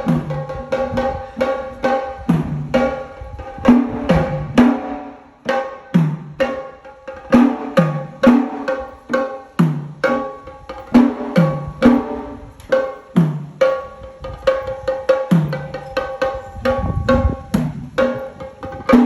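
Sri Lankan temple drumming: a fast, rhythmic run of hand-drum strokes, many of the low strokes falling in pitch, over a steady held note.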